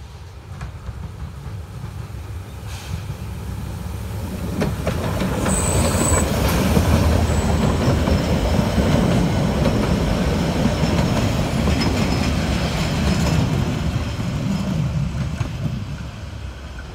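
Harz narrow-gauge steam train running past: the rumble and clatter of its wheels on the rails grow louder as it approaches and fade as it pulls away. A brief high wheel squeal comes about six seconds in.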